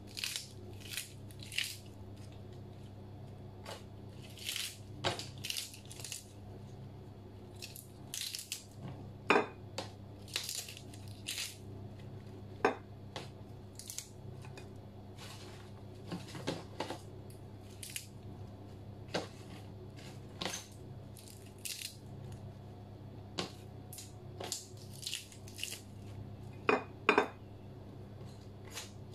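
Crisp lettuce leaves being torn apart by hand: a long series of short, crunchy snaps, with a few sharper clicks among them, over a steady low hum.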